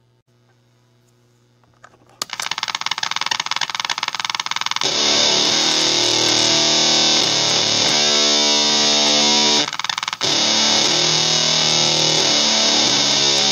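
Electric guitar through a Basic Audio Pendulum fuzz pedal in oscillation mode, played loud through an amp. About two seconds in, a rapid fluttering chatter starts. About five seconds in, it gives way to a slightly lo-fi but warm fuzz riff in drop D, with a short break near ten seconds.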